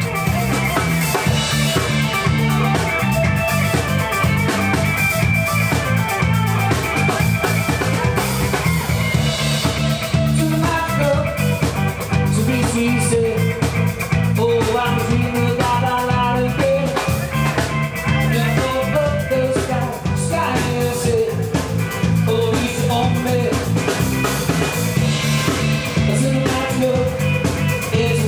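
Background music: a guitar-and-drums song with a steady beat and a sung or melodic line.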